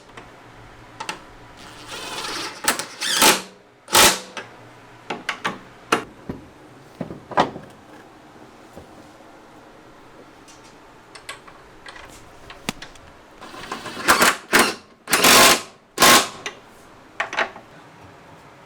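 Cordless impact wrench fired in several short rattling bursts on suspension bolts, with scattered metal clicks and clanks of tools and parts in between; the loudest bursts come near the end.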